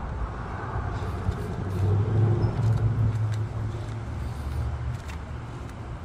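1964 Mercury Comet's engine idling steadily, a low even hum that swells a little about two seconds in.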